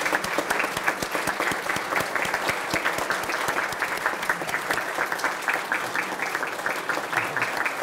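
Audience applauding: a roomful of people clapping steadily and densely.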